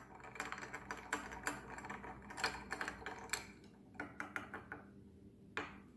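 Bar spoon stirring a cocktail in a rocks glass around a large ice cube: quick, light clicks and clinks of spoon against ice and glass, thinning out after about three and a half seconds, with one sharper click near the end.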